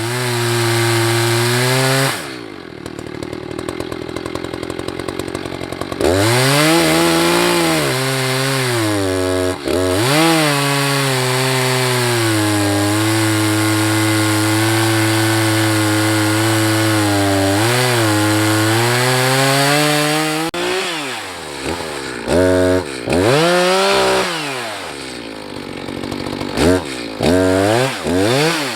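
Two-stroke chainsaw revving, dropping to idle for a few seconds, then held at high revs for about ten seconds as it cuts into a white oak log. Near the end it is blipped up and down several times.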